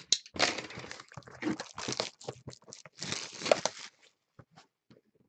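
Plastic shrink wrap being torn and crumpled off a sealed box of trading cards: ragged crinkling and ripping for about four seconds, then a few light clicks of handling.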